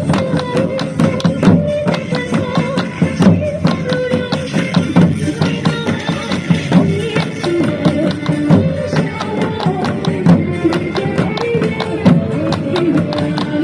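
Loud dance music with a steady percussive beat and a melody line.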